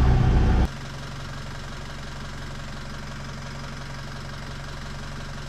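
A sailboat's inboard engine running steadily, on test with a newly fitted damper plate between engine and transmission. It is much louder for the first half-second, then drops sharply to an even, lower running sound.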